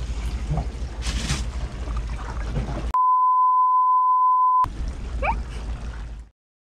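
Wind and water noise on a small boat, then a censor bleep: a single steady 1 kHz beep lasting under two seconds that covers a shouted expletive, followed by more wind and water noise.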